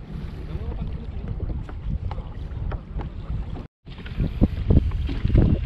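Strong wind buffeting the microphone over choppy sea water slapping against a small plastic kayak, in uneven gusts. The sound drops out for an instant a little past halfway and comes back louder.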